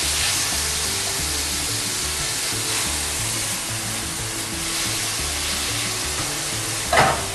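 Meat sizzling in hot oil in a frying pan as it is stirred with a silicone spatula, a steady frying hiss, over soft background music.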